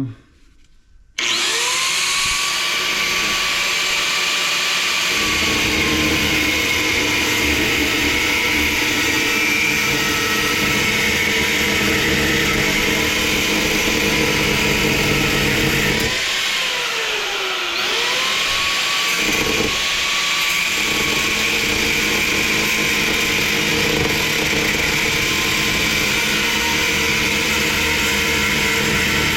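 An angle grinder starts about a second in and cuts into the thick steel shell of a compressor, running steadily with a high whine. Partway through, the whine dips and recovers as the wheel is loaded.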